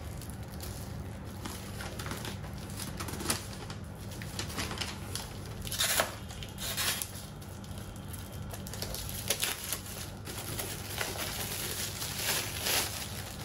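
Gift wrapping paper and a letter being handled and unwrapped: scattered rustling and crinkling, with a couple of louder crackles about six seconds in, over a low steady hum.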